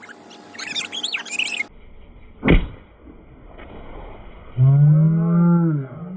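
A vehicle horn blast lasting over a second, loud and low, its pitch rising as it starts and sagging as it ends. Before it come high chirping whistles and a single thump.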